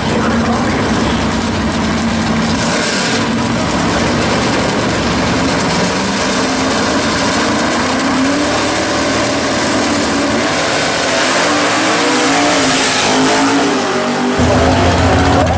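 Pontiac GTO's V8 running at the drag strip starting line, revved in staging so that its pitch rises and falls. Near the end the sound changes abruptly to a louder, deeper engine sound.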